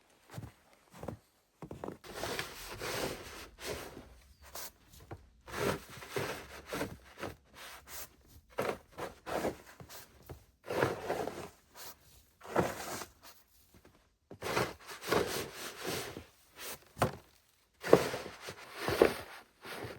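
Footsteps crunching through deep snow, an irregular run of steps about one every one to two seconds.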